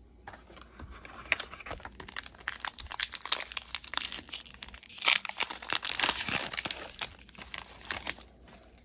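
Trading-card pack's foil wrapper crinkling as it is handled and torn open, a dense crackle that is loudest about five seconds in.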